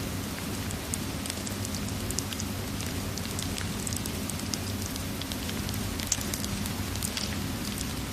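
Fireplace crackling with many small scattered pops over the steady hiss of falling rain.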